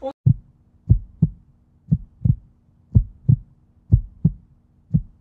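Heartbeat sound effect: pairs of deep thumps, lub-dub, about once a second, over a faint steady hum.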